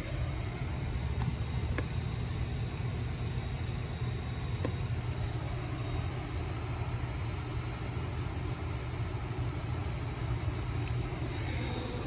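A steady low rumble with a few faint clicks.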